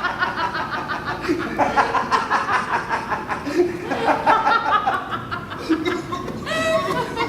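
A man laughing, on and off throughout, in quick broken pulses of voice.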